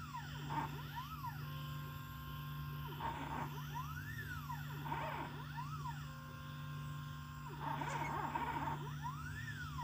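Stepper motors of a small homemade CNC pen plotter drawing PCB traces. Their whine rises and falls in pitch over and over as the axes speed up and slow down, with steady tones held between moves, over a constant low hum.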